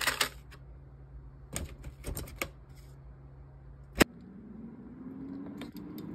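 Metal tongs clicking against an air fryer basket, then a sharp click about four seconds in as the air fryer's mechanical timer dial is turned. Its fan starts with a low hum that slowly rises in pitch, and the timer ticks lightly near the end.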